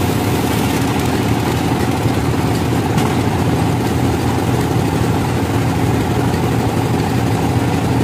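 A sawmill's engine running steadily at idle, a constant low drone with no cutting load on it.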